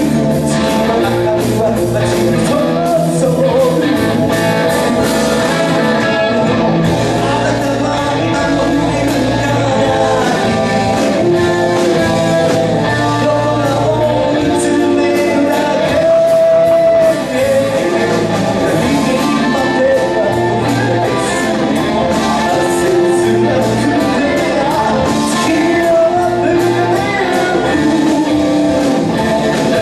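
Live band playing a rock song: singing over bass and drums, loud and steady throughout.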